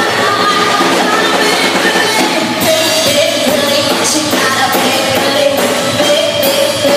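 A band plays amplified pop-rock on electric guitar, bass guitar, drum kit and keyboard, with a woman singing into a microphone.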